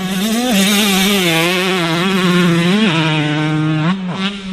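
A motor running fast and loud with a strong, steady pitch that wavers slightly, jumps up for a moment partway through and dips briefly near the end.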